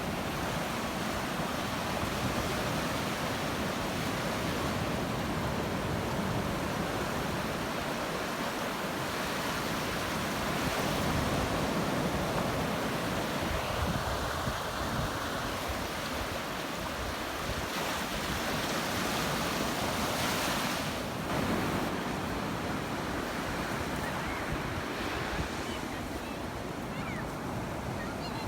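Ocean surf: waves breaking and washing up the beach in a continuous rush that swells and eases as each wave comes in, with wind buffeting the microphone.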